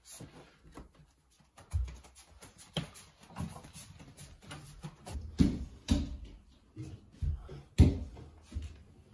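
Footsteps thudding and knocking on a wooden floor and stairs: a run of irregular thumps, the loudest about two seconds in, twice more after five seconds, and about eight seconds in.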